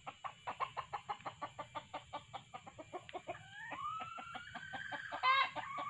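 Red junglefowl clucking rapidly, about five clucks a second. Partway through, a drawn-out call rises in pitch and holds, and near the end comes a short, loud call.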